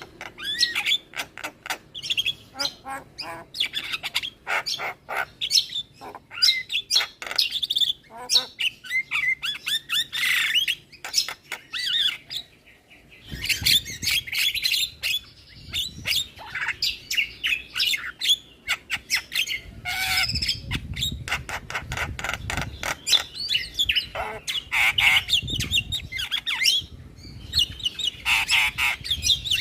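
Javan myna singing a rapid, varied song of chirps, whistles and harsh squawks, with a brief pause about twelve seconds in.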